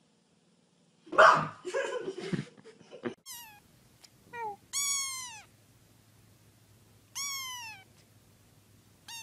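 A kitten meowing: a few short high calls, then two longer ones that rise and fall in pitch, about two seconds apart, and one more near the end. Before the meows, about a second in, there is a loud, rough noise lasting about two seconds.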